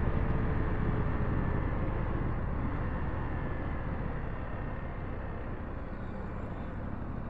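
Steady low rumble of vehicle and road noise, slowly fading.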